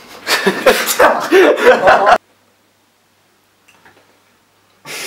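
Laughter in loud, breathy bursts for about two seconds, then the sound cuts off abruptly to silence.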